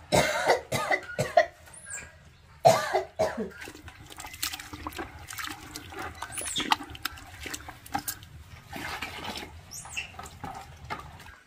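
Water sloshing and splashing in a plastic bucket as hands scrub and swirl something in it, in irregular bursts that are loudest in the first second and a half and again about three seconds in.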